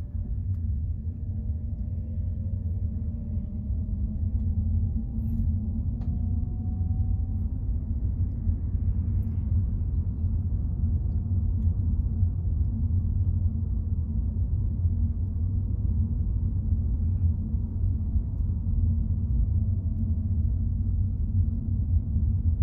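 A car driving along a road: a steady low rumble of engine and tyre noise, with a faint whine that slowly rises and falls in pitch.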